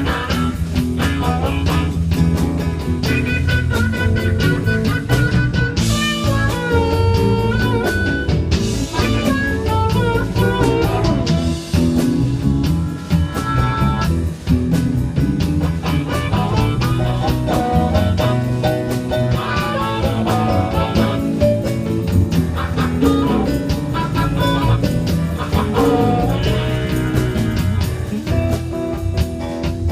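Live band playing a slow blues, with a guitar taking a lead of bent, sliding notes over bass and drums.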